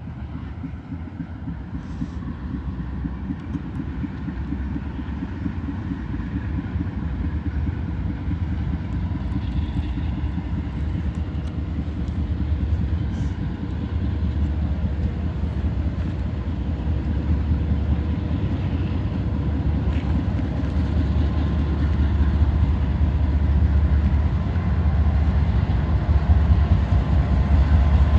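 Diesel locomotive approaching, its low engine rumble growing steadily louder.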